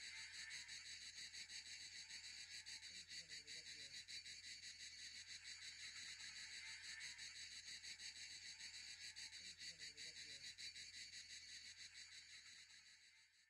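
Faint, steady high-pitched chirring of insects, fading out near the end.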